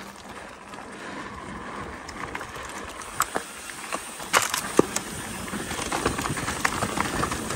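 Mountain bike rolling fast down a dirt singletrack: a rushing noise of tyres and wind that grows louder as the bike speeds up, with a few sharp clatters of the bike over bumps from about three seconds in.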